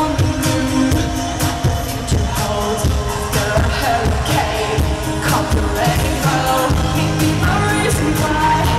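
Live pop song played loud by a full band: a woman sings the lead into a handheld microphone over drums and bass, with steady drum hits.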